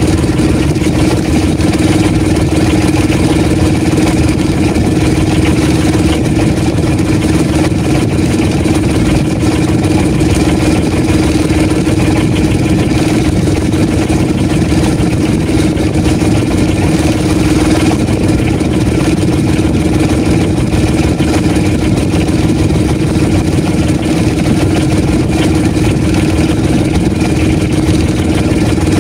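Engine of a motorized outrigger fishing boat running steadily at one speed, loud and close.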